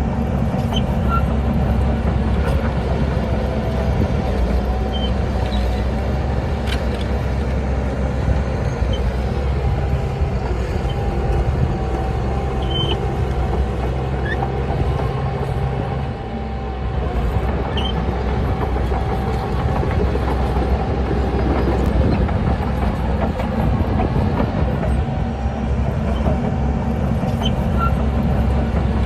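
Heavy diesel engine of an earthmoving machine running steadily under load, with a short drop in level about sixteen seconds in.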